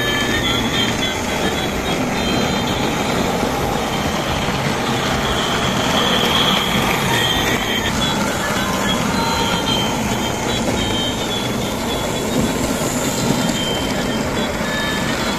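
Battery-powered toy trains running on plastic track: a steady whir of small electric motors and the rattle of plastic wheels.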